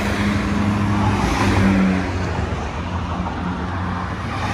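Highway traffic passing close by: trucks and cars going past, a steady rush of tyre and road noise with a low engine hum underneath.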